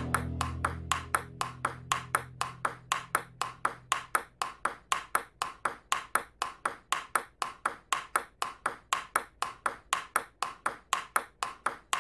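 Table tennis ball in a fast, even rally, clicking off paddles and table about four times a second.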